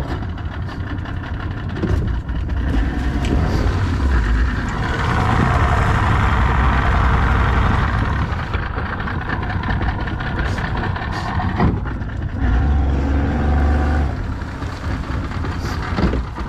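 Outboard boat motor running steadily, starting up loud at the opening and growing louder for a few seconds in the middle and again near the end.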